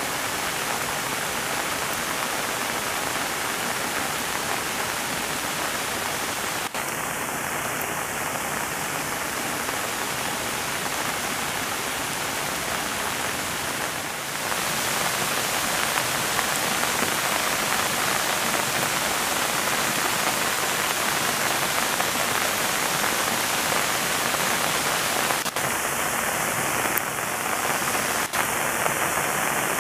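Steady rain falling on pond water, a continuous hiss that grows a little louder about halfway through.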